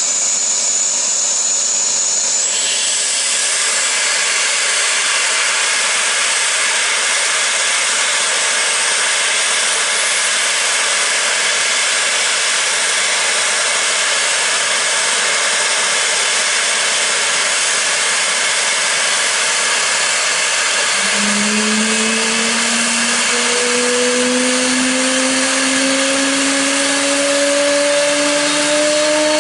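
Dornier 328JET's Pratt & Whitney Canada PW306B turbofans running on the ground: a loud, steady rushing hiss with a high whine. About 21 seconds in, a low whine starts and climbs steadily in pitch as an engine spools up during start.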